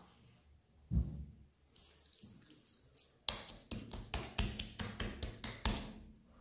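A soft thump about a second in, then a run of quick wet slaps and squelches, about four or five a second, as oiled hands pat and press a soft ball of pizza dough.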